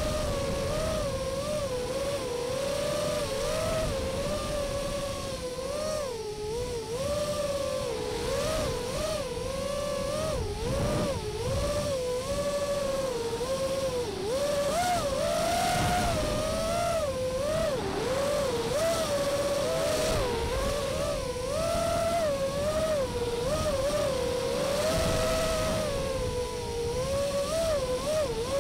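FPV racing quadcopter's brushless motors and propellers whining, the pitch wavering up and down constantly with the throttle as it manoeuvres, recorded by the onboard camera's microphone over a rush of air noise.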